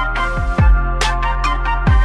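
Electronic background music: a deep kick drum beat under held synth tones and crisp percussion.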